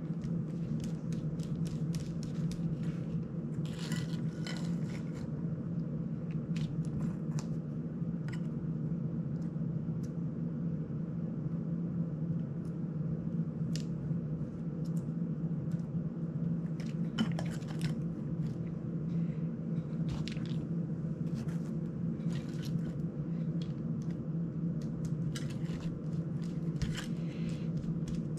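Small screwdriver and screws clicking and ticking against a GEPRC CineLog35 drone frame and its prop guards during reassembly, in scattered light taps over a steady low hum.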